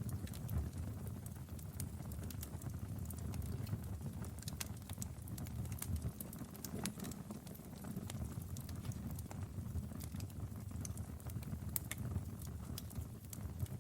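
Wood fire burning in a fireplace: irregular crackles and sharp pops over a low, steady rumble of flame.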